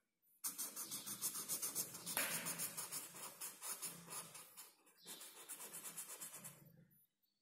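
Felt-tip marker scribbling back and forth on paper while colouring in, about seven or eight quick strokes a second, with a short break about five seconds in.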